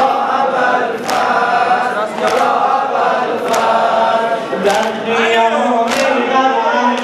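A group of men chanting a Muharram mourning lament in unison, kept in time by sharp group chest-beating slaps (sineh-zani), about one every 1.2 seconds.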